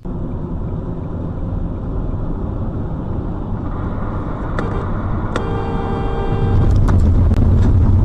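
Road vehicle driving, a dense steady rumble of engine and road noise. Sharp knocks come about four and a half and five and a half seconds in and several more near the end, with a held pitched tone alongside them. The rumble grows louder about two-thirds of the way through.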